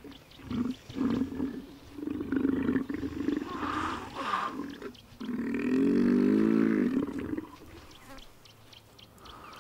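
Two bull hippopotamuses fighting jaw to jaw, roaring: a run of short deep calls in the first three seconds, then one long call of about two seconds around the middle, before the calling dies down near the end.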